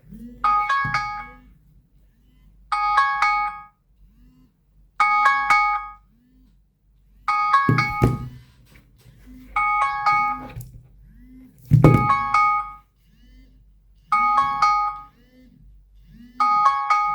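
Smartphone alarm tone ringing: a quick cluster of bell-like chime notes repeating about every two seconds, with a fainter low tone rising and falling beneath it. Two thumps sound about eight and twelve seconds in.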